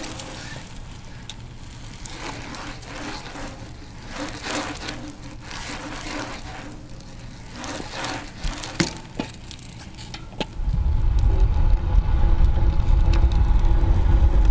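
A BMX bike ridden through flatland tricks on asphalt, with scattered sharp clicks and scuffs over a light outdoor background. About ten seconds in, a loud low rumble of wind and road noise from a camera mounted on the rolling bike takes over.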